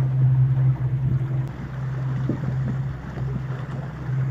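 Motorboat engine running at a steady drone, with wind and water noise over it.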